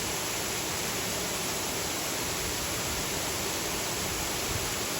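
Steady rushing of falling water from a waterfall, an even noise with no breaks or distinct events.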